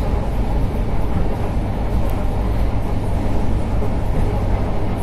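ER9M electric multiple unit running between stations, heard from on board: a loud, steady low rumble with no breaks.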